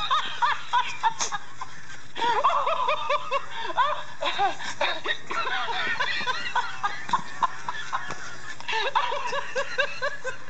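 Plush laughing monkey toy playing its recorded laugh: quick, evenly paced chains of high 'ha-ha-ha' syllables, breaking off briefly about two seconds in and again near the end before starting up once more.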